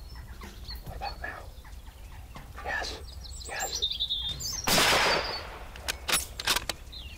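A single rifle shot about two-thirds of the way in: a sudden loud crack with a short rushing tail. A few sharp clicks follow a second or so later, and faint bird chirps come before the shot.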